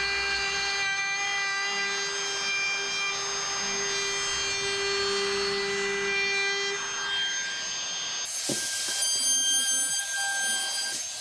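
DeWalt compact router running at full speed, its bit cutting along the edge of a hardwood cutting board: a steady high motor whine with cutting noise. The sound changes character about eight seconds in.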